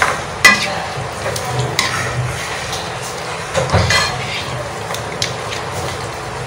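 Beef, tomato masala and yogurt sizzling in a non-stick wok while being stirred with a spatula, the spatula scraping and knocking against the pan several times.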